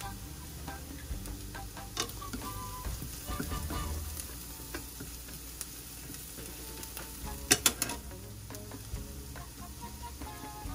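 Food sizzling in a stainless steel skillet while it is stirred with wooden chopsticks, with scraping against the pan. A little past the middle there are a few sharp clicks of the chopsticks knocking the pan.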